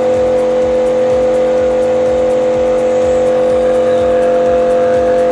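Benz BZ-8548 electric high-pressure washer running flat out at its maximum pressure setting, spraying through a 25-degree nozzle. The motor and pump give a loud, steady hum that does not change.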